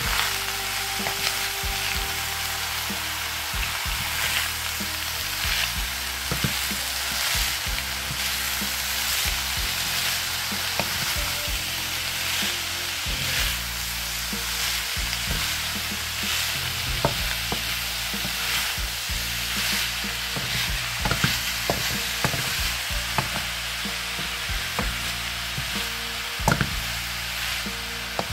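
Leafy greens and sliced meat sizzling as they are stir-fried in a nonstick frying pan. A wooden spatula scrapes and knocks against the pan now and then, with one sharper knock near the end.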